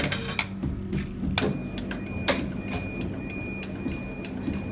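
Multi-head embroidery machine running with a steady hum and a ticking mechanical sound, with several sharp clicks scattered through.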